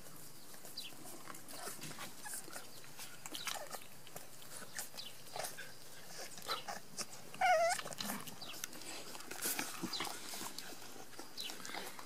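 A litter of Rat Terrier puppies nursing, with many small sucking smacks and short squeaks, and one louder wavering whimper from a puppy about seven and a half seconds in.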